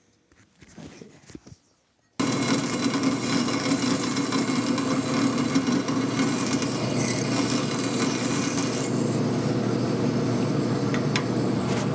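A few faint handling sounds, then a power tool starts abruptly about two seconds in and runs steadily and loudly as it works a piece of metal.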